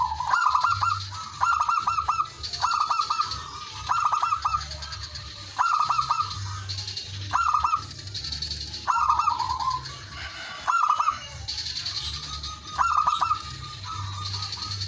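Male zebra dove (perkutut) singing: about ten short, trilled coos, repeated every one to two seconds. This is the male's song used to call rivals.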